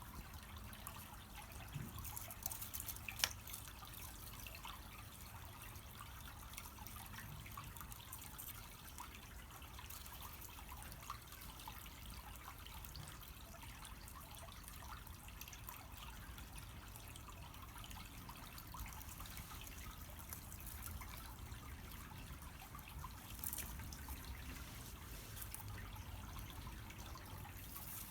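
Small wood fire burning on charcoal in a shichirin grill, crackling with scattered small pops and ticks, one sharper pop about three seconds in.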